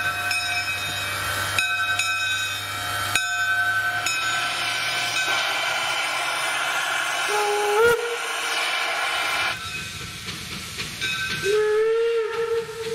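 Two-foot gauge steam locomotive blowing off a steady hiss of steam, with a short steam whistle blast rising in pitch about seven and a half seconds in. After a break, a second steam whistle sounds near the end, rising briefly and then held.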